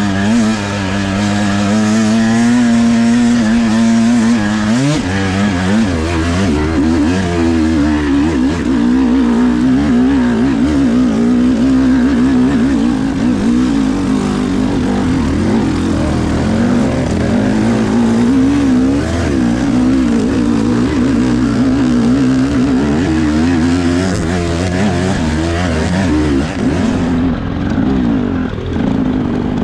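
Two-stroke enduro motorcycle engine, a GasGas EC300 TBI, being ridden with constantly changing throttle, its pitch rising and falling.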